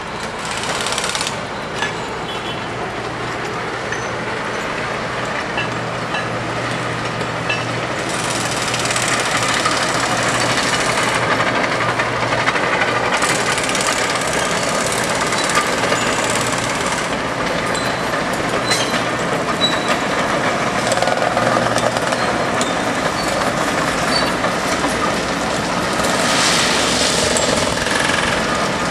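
Diesel engines of heavy track-work equipment running, with a steady low hum and irregular metallic clanks and knocks.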